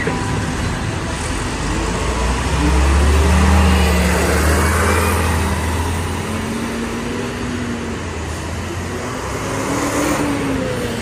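Busy road traffic at a city bus stop, with a city bus engine rumbling loudest a few seconds in as the bus pulls away, its pitch slowly rising. Another bus engine passes close by near the end.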